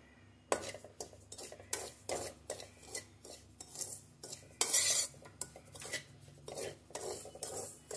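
Metal spoon scraping the bottom of a metal kadai while stirring semolina as it dry-roasts. The strokes are irregular, metal on metal with a dry grainy rasp, and begin about half a second in.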